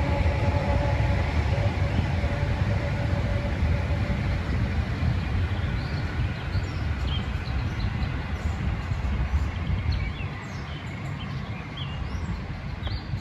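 Diesel-hauled train rumbling past and slowly fading away, with birds chirping as the rumble dies down in the second half.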